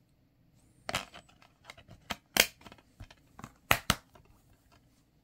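Plastic DVD case being handled: the disc pressed back onto the case's centre hub and the case snapped shut, a series of sharp plastic clicks and snaps with a close double snap near the end.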